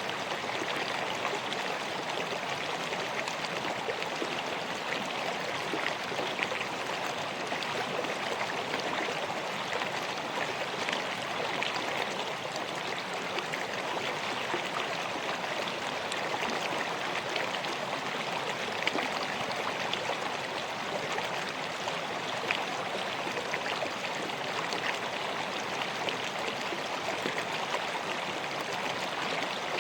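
River water flowing steadily over rocks, a continuous rushing babble with small splashes.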